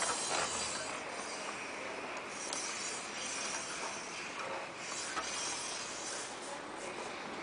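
Steady rubbing hiss from a Yamaha Crypton X moped's front wheel: the brake disc is scraping lightly against the caliper pads as the wheel turns. The whistle the owner is chasing in this wheel does not come through as a clear tone here.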